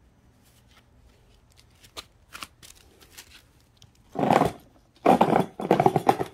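Close handling noise: a few faint clicks, then loud rustling and scraping. It comes once briefly about four seconds in and again in a longer stretch near the end.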